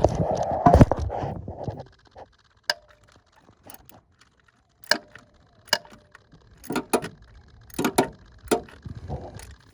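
Hand tools and metal parts clinking in a car's engine bay while an ignition coil is worked loose: a scraping rattle for the first two seconds, then a string of separate sharp clicks and knocks.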